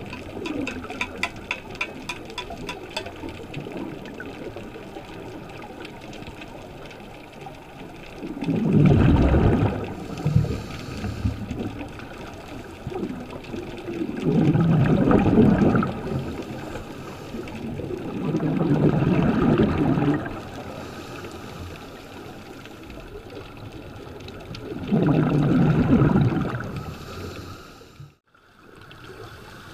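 Scuba regulator exhaust bubbles heard underwater: four rumbling bursts of exhaled air, each about two seconds long and several seconds apart, following the diver's breathing rhythm. A rapid series of faint clicks runs through the first three seconds.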